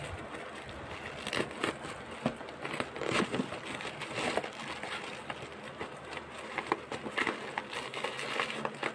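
Irregular clicks, knocks and scrapes of hand tools and parts being handled while a washing machine gear case is taken apart.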